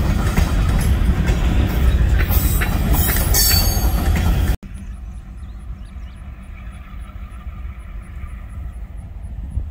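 Loaded covered hopper cars rolling past close by, their steel wheels clicking over the rail joints and squealing against the rail. About halfway through it cuts abruptly to a much quieter, steady low drone of a diesel locomotive approaching in the distance.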